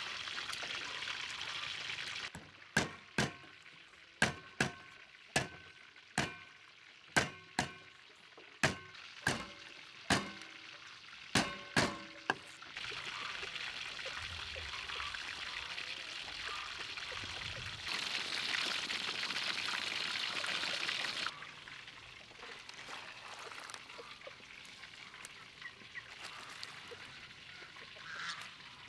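A series of about a dozen sharp knocks with a brief metallic ring, about one a second, from a cleaver striking garlic on a wooden cutting board. Then a steady splashing and pouring of water as vegetables are washed in a metal basin, loudest for a few seconds in the middle.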